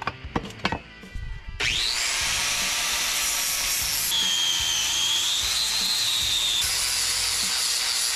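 A power tool spins up about a second and a half in and runs steadily against metal, with a whine that wavers in pitch midway; a few sharp knocks come before it.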